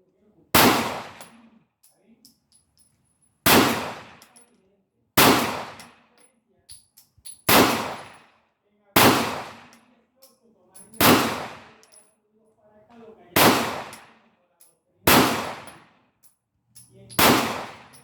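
Canik TP9 Elite SC 9mm pistol fired in slow, aimed single shots, nine in all, about one every two seconds, each with a short trailing echo.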